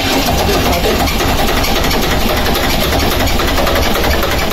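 A lifeboat's three-cylinder diesel engine turning over loudly and steadily on its starter, in an attempt to start an engine that has trouble starting.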